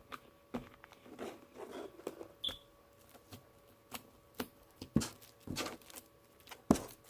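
Homemade glue slime being mixed and handled: irregular soft clicks and sticky pops, the loudest about five seconds in and again near the end.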